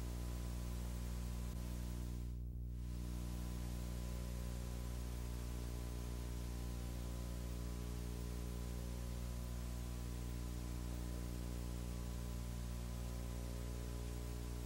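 Steady low electrical hum with a buzz of many overtones, under constant hiss. The hiss drops out briefly about two and a half seconds in.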